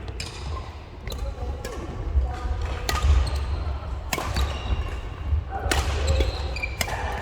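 Badminton rally on an indoor court: sharp racket-on-shuttlecock strikes about once a second or so, short squeaks of court shoes on the floor, and low thuds of footsteps.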